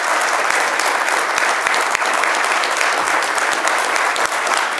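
An audience clapping steadily: continuous applause from many hands at the end of a talk.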